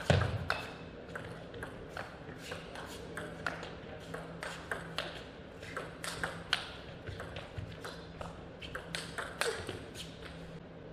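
Table tennis rally: the plastic ball clicking off the rackets and the table in a long run of quick, sharp pops, one player hitting from far back, until the point ends just before the close.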